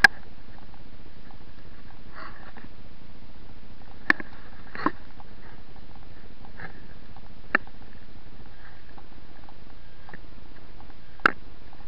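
A steady even hiss with five sharp clicks scattered through it, the loudest a little before the end, typical of a handheld camera's own microphone noise and handling knocks.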